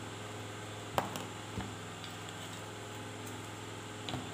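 Three light clicks of a wooden spoon knocking against a small glass bowl while a paste is scooped and stirred, the first one the loudest, over a steady low background hum.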